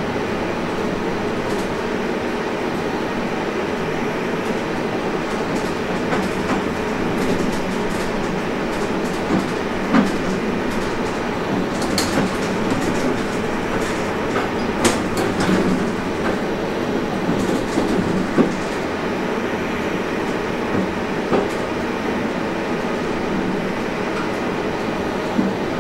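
Train running, heard from the driver's cab: a steady rumble of the running gear, with sharp clacks as the wheels cross points and rail joints, most of them in the middle stretch.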